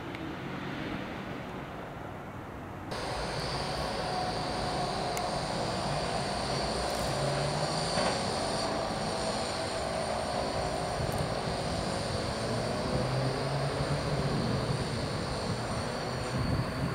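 Steady outdoor traffic din, a low hum with a thin, steady high-pitched whine above it. It jumps louder about three seconds in.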